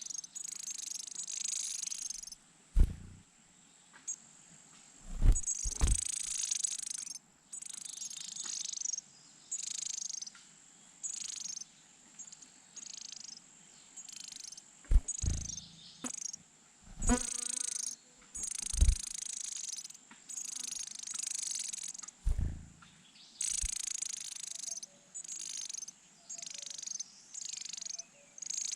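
Leaf warbler nestlings giving high-pitched begging calls in short repeated bursts. Several sharp low thumps come in between, the loudest near the middle.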